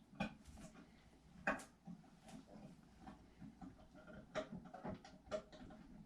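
Scattered light clicks and knocks from a garbage disposal being worked at by hand, metal and tool tapping inside it, with a wire spring jammed in the disposal.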